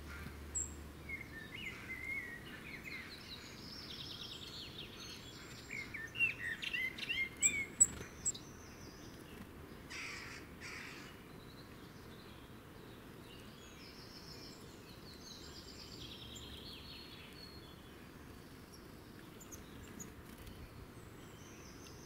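Small songbirds singing and calling: scattered chirps, a trilling phrase heard twice, and a burst of loud chirps about six to eight seconds in.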